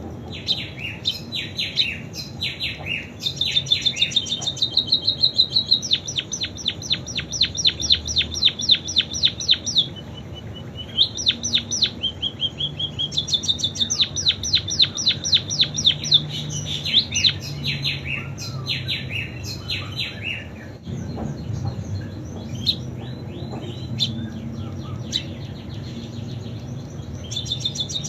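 Pipit singing a song copied from canaries: phrases of fast, rattling trills and chirps, with a short steady whistle about ten seconds in and brief pauses between phrases.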